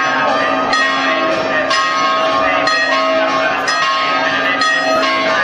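Church bells ringing out in a continuous, busy peal, strike after strike overlapping with no pause.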